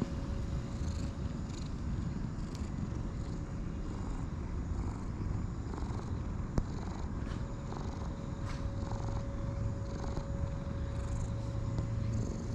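Domestic cat purring steadily while being stroked, with one sharp click about six and a half seconds in.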